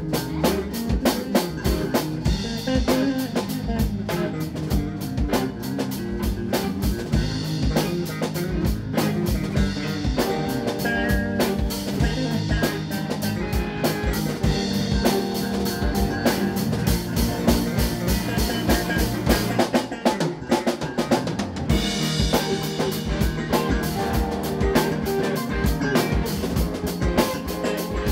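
Live band playing an instrumental jam: two electric guitars and an electric bass over a pdp drum kit, the drums hitting steadily throughout.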